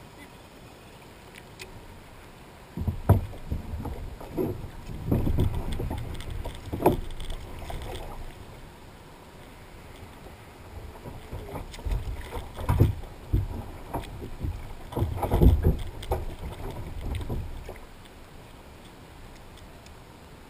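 Irregular thumps and knocks against a plastic sit-on-top kayak as a swimming dog is hauled aboard. They come in two bursts of several seconds each, the second stronger and starting about halfway through.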